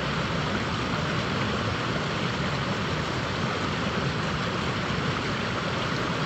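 Steady rush of river water running through a rapid.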